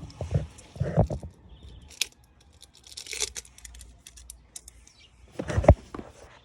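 Handling noises: a few sharp knocks and thumps, the loudest a little after five seconds, with a brief crinkling rustle in between.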